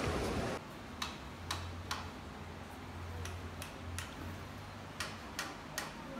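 Footsteps of hard-soled shoes on paving stones, sharp clicks about two a second, with a low hum in the middle. A loud rushing sound cuts off suddenly about half a second in.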